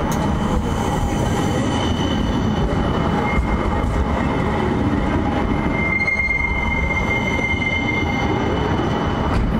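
A CAF Urbos 3 tram running past at close range with a steady rumble, and a high-pitched squeal from its wheels on the curved track, loudest from about six seconds in.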